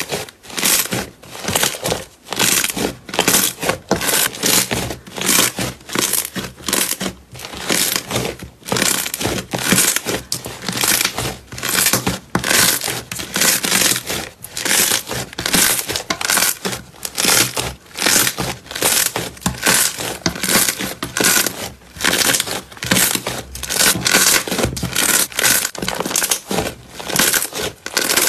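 Pink slime being kneaded and pressed by hand, giving a quick, uneven string of short crackly sounds, about two or three a second, as the hands squeeze and fold it.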